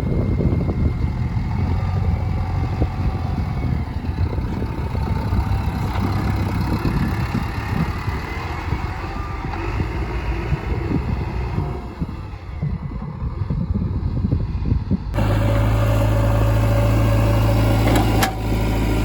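Diesel engine of a JCB 3DX backhoe loader running, with an uneven low rumble. About fifteen seconds in, the sound switches abruptly to a steadier, louder engine hum.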